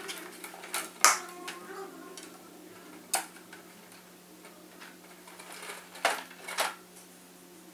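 Sharp clicks and taps of small hard parts being handled, about four distinct ones spread over several seconds, over a faint steady hum.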